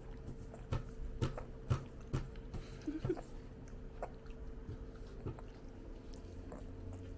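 Close-up chewing: moist mouth clicks about twice a second, thinning out after about four to five seconds, over a faint steady hum.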